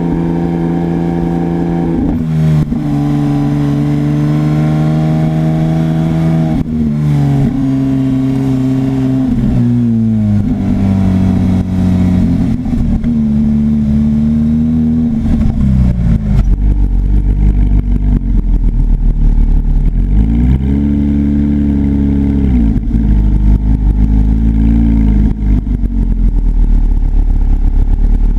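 Porsche 991 GT3's flat-six engine through a GMG aftermarket exhaust, pulling through several gear changes with its pitch stepping up and down. About halfway through it drops to a louder, low burbling rumble, with two short rises in pitch.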